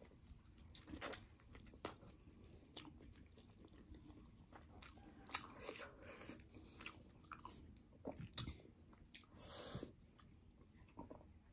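Close-up chewing and biting of food, faint, with many small mouth clicks scattered throughout. A short noisy sip of a drink comes near the end.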